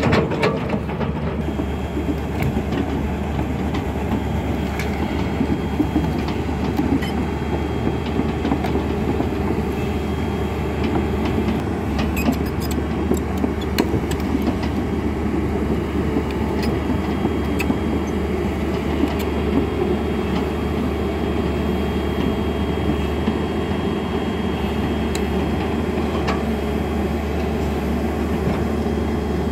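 Hyundai 210 Smart crawler excavator running steadily, its diesel engine humming, with the rattle and clank of its steel tracks and small clicks scattered through as the machine travels.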